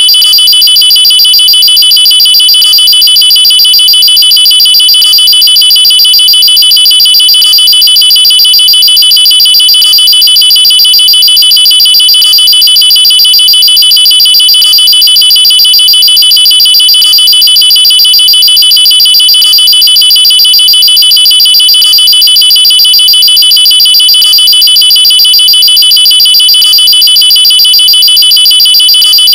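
Electronic alarm sound effect billed as a nuclear-attack alarm: a loud, high-pitched, rapidly trilling tone held steady. A faint pattern repeats about every two and a half seconds.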